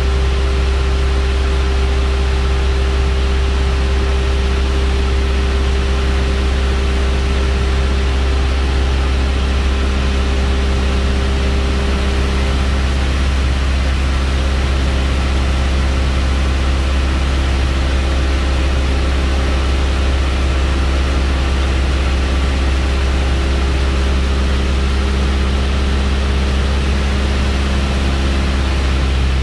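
Steady, loud drone of a light aircraft's piston engine and propeller heard from inside the cockpit in flight. The engine note drops a little about twelve seconds in.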